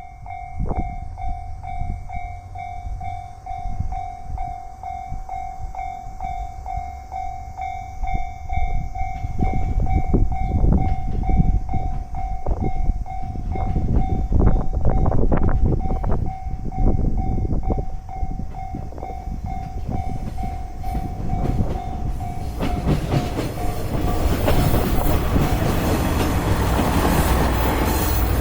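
Japanese level-crossing warning bell ringing, an evenly repeating electronic ding, while a train runs over the crossing with rhythmic wheel clatter. The bell stops about 22 seconds in, and the train noise swells into a loud, steady rush.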